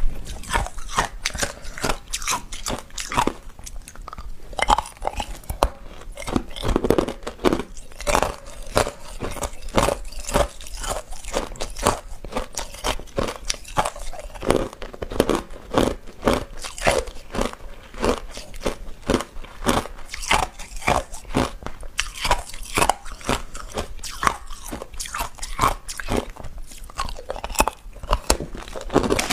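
Hard clear ice being bitten and chewed close to the microphone: a steady run of sharp crunches and cracks, several a second.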